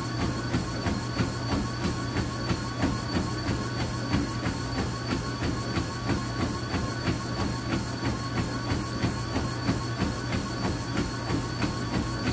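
A treadmill running under a runner: a steady motor whine and belt hum, with even footfalls striking the deck about three times a second.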